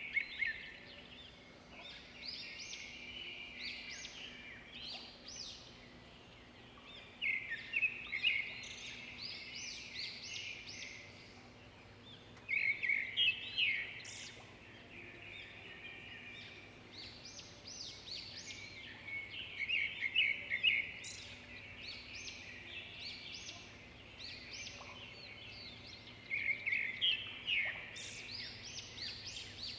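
Small birds chirping in dense bouts of quick, high chirps. Louder bursts come about every six or seven seconds, with softer chirping between them.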